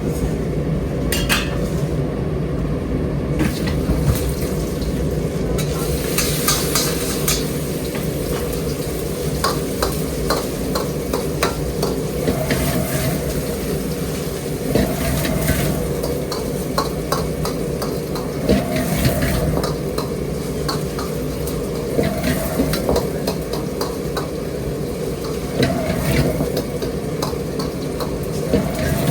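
Stir-frying in a wok: a metal spatula scraping and clinking against the pan again and again over a steady sizzle, likely the bean sprouts for the noodle topping.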